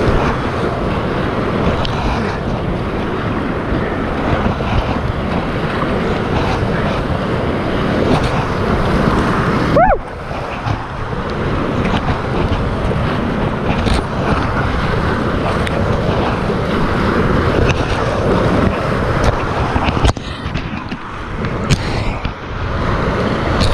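Whitewater rapids rushing and splashing around an inflatable kayak, a loud, continuous churning of water. The noise dips briefly about ten seconds in and again near twenty seconds.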